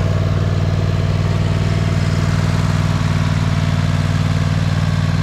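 Riding lawn mower engine running steadily at an even speed, a deep, unchanging hum.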